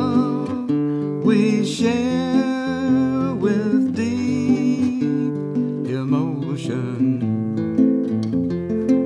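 Acoustic guitar strummed in steady chords, with a man's voice singing over it in two phrases; the voice stops near the end, leaving the guitar playing alone.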